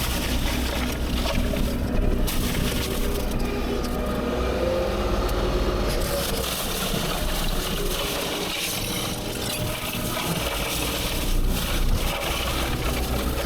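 Heavy land-clearing machine's engine running with a steady low drone. The low hum drops back for a few seconds in the middle and returns near the end.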